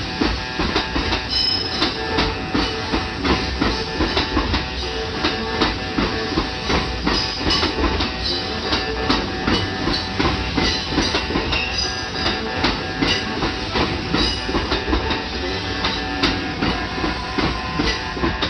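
Kintetsu Nagoya Line train passing over a level crossing, its wheels clicking rapidly and repeatedly over the rail joints above a steady rumble.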